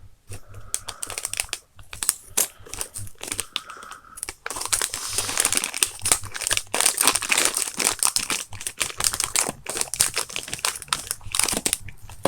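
Scissors snipping into plastic toy packaging, then steady crinkling of the plastic as it is opened and handled from about four seconds in.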